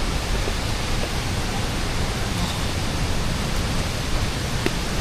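Steady rush of a waterfall in full, heavy flow.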